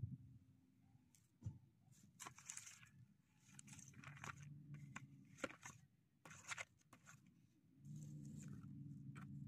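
Several short bursts of dry rustling and crunching, over a low, steady hum that grows louder near the end.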